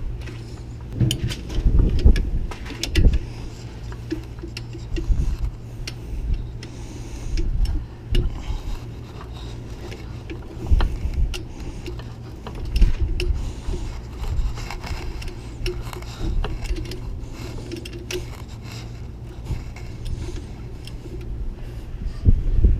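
A torque wrench tightening a bolt to 70 foot-pounds: irregular ratchet clicks and metal clunks from the wrench and bolt, over a steady low hum.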